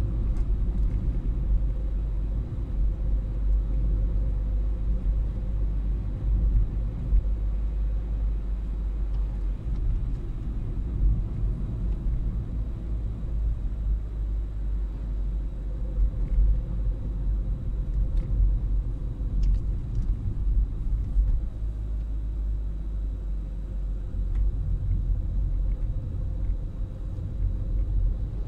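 Steady low rumble of a car driving on an open road, heard inside the cabin: tyre and engine noise with a faint steady hum.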